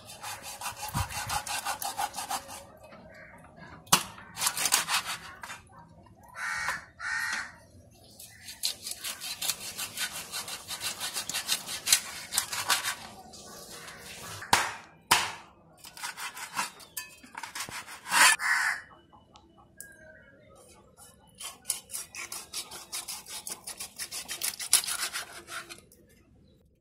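Cleaver sawing back and forth through a murrel fish's scaly skin and flesh on a cutting board: runs of rapid rasping scrapes a few seconds long, broken by several sharp knocks of the blade on the board.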